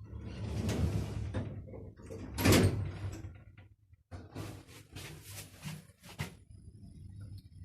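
A Mogilevliftmash passenger lift's automatic sliding doors in motion, with one loud knock about two and a half seconds in and a run of clicks and rattles after a short pause.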